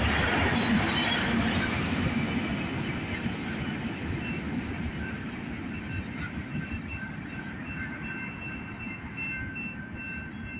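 Freight train's covered hopper cars rolling past and moving away, the wheel rumble fading steadily. In the second half a high tone pulses on and off at an even pace.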